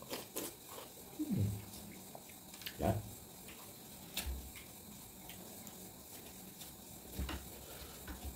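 Close-up eating sounds: juicy watermelon being chewed and slurped, with a metal spoon scooping into the flesh of a half watermelon. There are a few sharp clicks and scrapes of the spoon.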